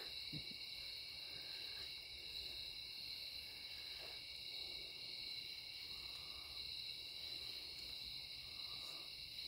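Steady, high-pitched chorus of night insects such as crickets, trilling on without a break.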